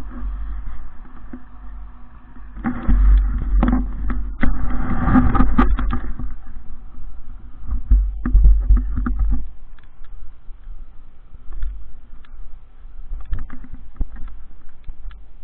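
Suzuki RM125 single-cylinder two-stroke dirt bike idling, under a heavy low rumble that swells twice and many short knocks and clicks.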